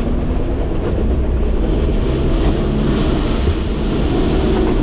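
Engine and tyre noise inside the cabin of a Toyota four-wheel drive running in four-wheel drive on beach sand: a steady low rumble with a hiss that swells in the middle and eases near the end.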